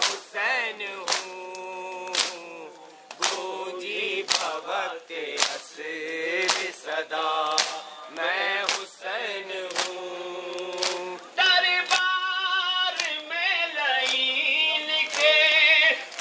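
Men's voices chanting a nauha, a Muharram lament, in chorus. Sharp slaps keep time about once a second: the rhythmic chest-beating of matam.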